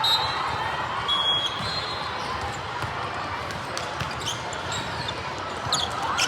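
Indoor volleyball gym din: the ball being hit and bouncing on the hard court, with a few sharp knocks near the end and short high squeaks in the first second or so, over a steady wash of hall noise and distant voices.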